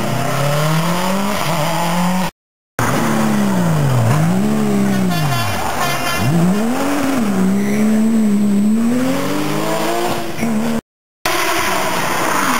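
Rally car engines revving hard as the cars come through, the pitch climbing and dropping again and again with gear changes and lifts of the throttle. The sound cuts out for a moment twice, where the recording jumps from one car to the next.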